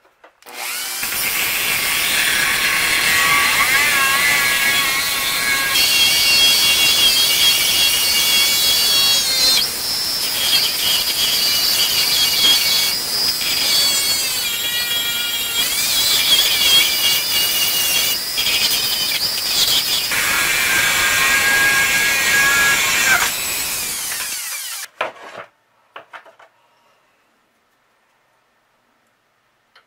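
A handheld power tool's abrasive wheel grinding into metal and throwing sparks. The motor's whine wavers in pitch as the load changes. It starts about a second in and cuts off about five seconds before the end.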